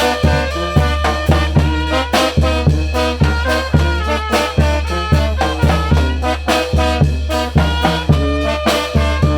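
Mexican banda brass band playing: trumpets and trombones carry the melody over a heavy bass line and a steady, even drum beat.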